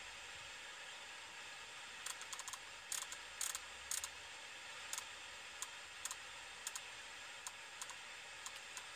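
Irregular clicks of an Opel Navi 600/900 head unit's controls being worked to scroll through its menu. The clicks start about two seconds in, come in quick clusters, then thin out, over a steady faint hiss.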